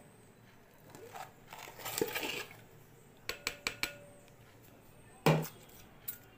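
Plastic spatula scraping and knocking against a glass bowl and plastic container while slushy, partly frozen milk is scraped into the bowl: a scrape about two seconds in, a quick run of small clicks, then one loud knock about five seconds in.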